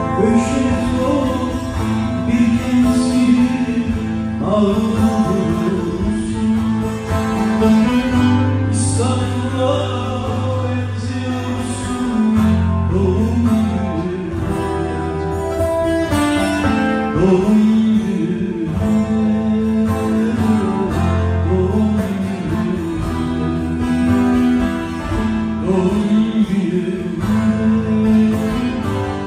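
Live Turkish folk music played on bağlama (saz) and guitar, plucked string lines over long held bass notes.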